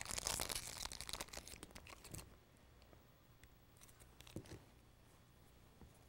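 Aluminium foil crinkling as it is unwrapped and crumpled. It is dense and crackly for about the first two seconds, then near quiet with a faint tap about four and a half seconds in.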